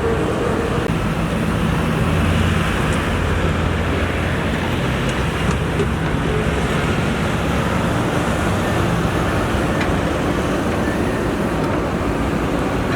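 Diesel engine of a JCB 3DX backhoe loader running steadily, a constant low engine drone with a noisy rumble over it.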